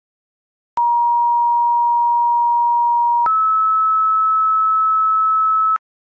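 Fire dispatch two-tone sequential paging tones over the radio, which alert the volunteer company's pagers: a steady lower tone for about two and a half seconds, then a higher steady tone for about as long, with a click where each starts and stops.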